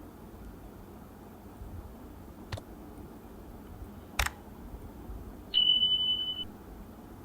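Two sharp mouse clicks, then a single high-pitched electronic beep about a second long, steady in pitch and louder than the clicks.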